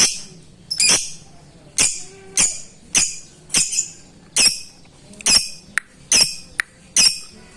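Lovebird calling out to a rival: loud, harsh, shrill calls repeated a little faster than once a second at uneven spacing, with a few shorter sharp chirps in between in the second half.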